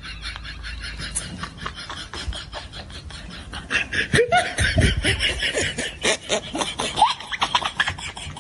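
People laughing in quick, repeated bursts, growing louder with rising, high-pitched cackles from about four seconds in.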